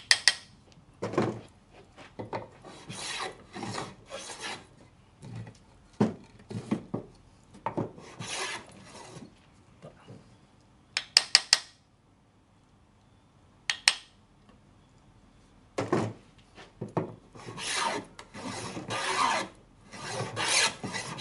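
Handmade wooden dovetail plane cutting a dovetail groove in a board, in a series of short rasping strokes that run almost without a break in the last few seconds. There is a sharp tap at the start and a quick cluster of taps near the middle from a hammer striking the plane to set its small iron.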